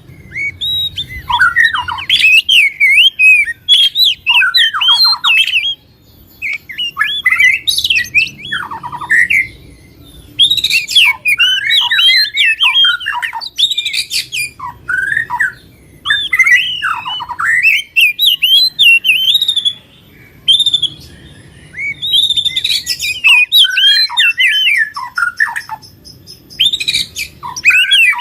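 Cage songbirds singing loud, fast, varied chirping phrases several seconds long, broken by short pauses. This is a recording of 'fighter'-style birdsong, used as a prompt to get reluctant cage birds to sing.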